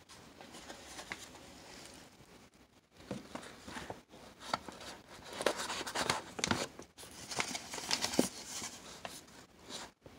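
A stand-up pouch of dried nettle leaf crinkling as it is handled: irregular rustles and crackles, fainter at first and louder from about three seconds in.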